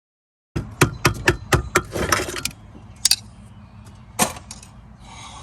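Metal tools knocking and prying at a stuck brake master cylinder to break its seal on the brake booster: a quick run of about six sharp metallic knocks, a short scrape, then two more single knocks, over a steady low hum.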